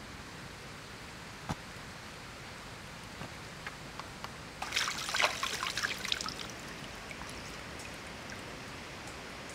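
Water trickling and splashing as a raw pork leg is rinsed by hand in a stream, with a burst of splashing about halfway through over a steady low wash of moving water.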